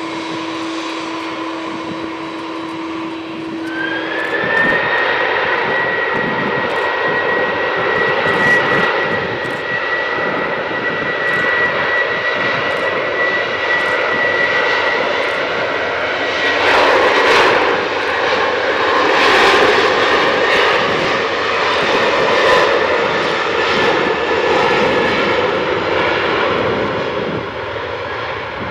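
Airbus A330-202 jet airliner's engines spooling up for takeoff. A steady engine tone rises in pitch about four seconds in, and the whine is then held under a growing noise that peaks midway through as the aircraft accelerates down the runway and passes, then eases off near the end.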